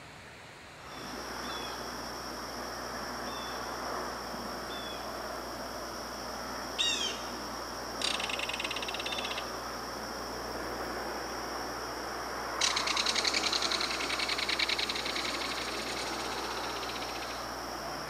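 Belted kingfisher giving its dry, rapid rattling call: a short rattle about eight seconds in and a longer one of about four seconds from around thirteen seconds in. Under it runs a steady high background tone and an even hiss.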